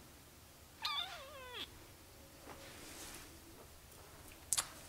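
A single short animal call, falling and wavering in pitch, about a second in. Two sharp clicks close together follow near the end.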